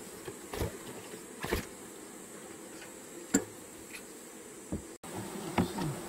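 Honeybees buzzing steadily over an opened hive full of a freshly hived swarm, with a few sharp clicks and knocks, the loudest about three seconds in.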